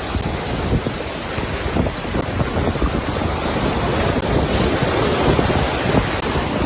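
Ocean surf washing in, with wind buffeting the microphone; the rush grows louder in the second half.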